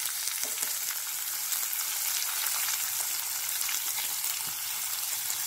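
Chopped onions sizzling in hot oil in a kadai, a steady hiss with faint crackles running through it.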